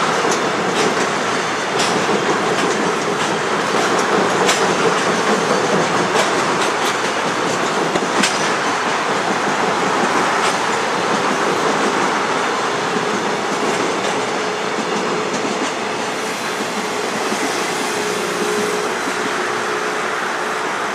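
Container freight train wagons rolling away over a steel bridge, the wheels clicking over rail joints in the first half and the rumble easing off as the train recedes. A faint steady tone comes in during the latter part.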